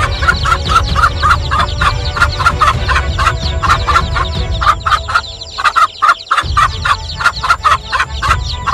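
Hen clucking rapidly and over and over, several clucks a second, as she defends her chicks from a snake; the calls break off briefly about six seconds in.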